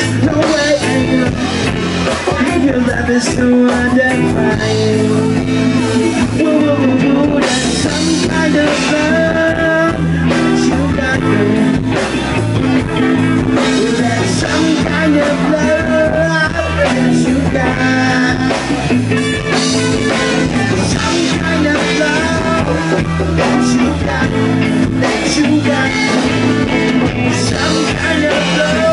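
Live rock band playing a mostly instrumental passage: electric guitars, bass, drum kit and congas.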